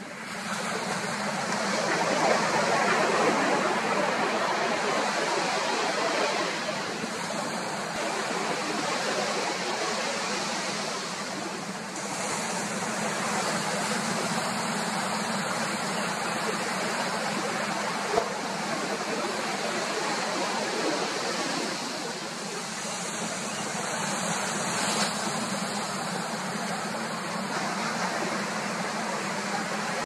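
Sea surf washing on the beach, a steady rushing noise that swells and eases every several seconds.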